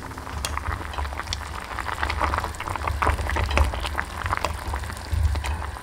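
A pot of water boiling hard: a dense, irregular crackle of bubbles bursting on the foamy surface over a steady low rumble.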